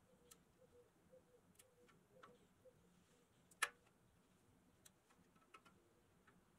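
Faint, scattered small clicks and ticks of tape-padded needle-nose pliers working the metal at the chrome grille of a toy truck cab, with one sharper click about three and a half seconds in.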